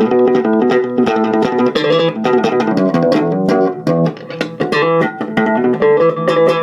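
ESP LTD B-206SM six-string electric bass played slap-style through a small 15-watt Crate amp, with the highs all the way up and bass and mid at the middle: a quick, continuous run of sharp, percussive thumped and popped notes.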